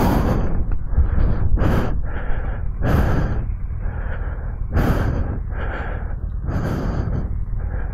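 A person breathing heavily close to the microphone, one breath about every couple of seconds, over a loud, fluctuating low rumble.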